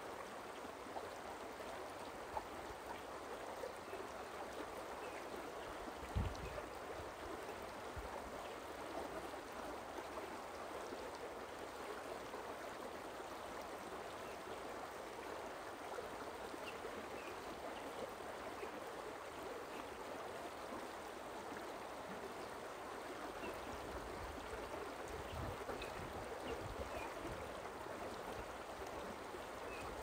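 Forest stream with water running steadily in an even, continuous rush. There is a brief low thump about six seconds in, and some low rumbling near the end.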